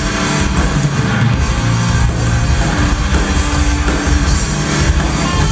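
Live rock band playing loud, heavy music on electric guitars and a drum kit, heard from the audience.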